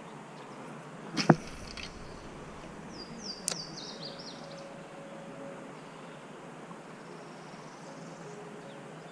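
Spinning rod and reel being handled: a sharp click with a brief swish about a second in, and a second click about two seconds later. A short run of high, falling chirps sits around the second click, over a steady outdoor hiss.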